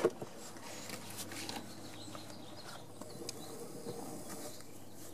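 Faint outdoor background noise with a sharp click at the start and a few faint short ticks.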